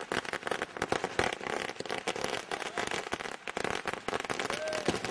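A long string of firecrackers laid along the ground going off in a rapid, irregular crackle of many sharp bangs a second.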